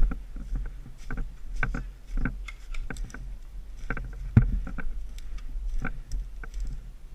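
Irregular short knocks and clicks, roughly two a second, over a steady low rumble on the microphone, the loudest knock about four seconds in: a player's footsteps and gear moving on the field.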